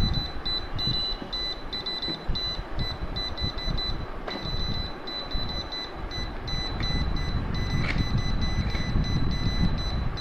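Laser level's out-of-level alarm beeping in rapid high-pitched bursts: the warning that the self-levelling laser is not level, sounding while it is handled and fitted onto its stand. Low handling rumble runs underneath, with a sharp knock about four seconds in.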